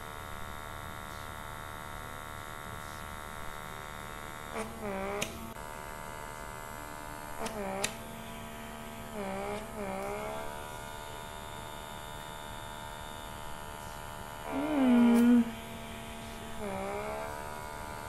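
Handheld pore vacuum (blackhead suction device) running with a steady electric hum while its suction tip is pressed to the skin of the nose. Its pitch dips and recovers several times, most strongly about fifteen seconds in.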